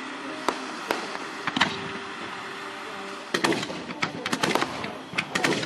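Fireworks display: aerial shells bursting overhead, a few separate bangs in the first two seconds, then a quick run of sharp cracks and pops from about three seconds in.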